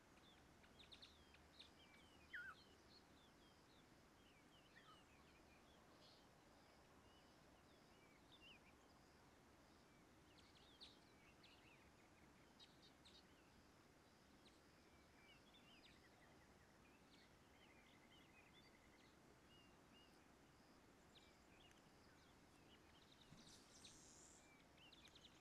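Near silence with faint, scattered chirps and short calls of songbirds, and one brief rapid trill about two-thirds of the way through.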